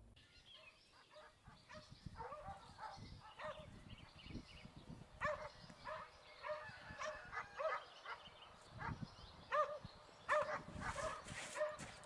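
Dogs barking: many short barks, coming thicker and louder in the last two seconds.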